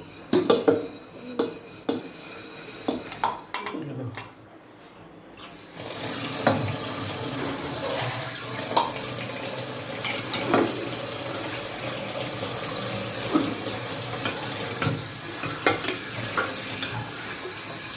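Metal spoon stirring lemon pickle in a steel pan, scraping and knocking against the pan. About six seconds in, a steady hiss sets in under the stirring.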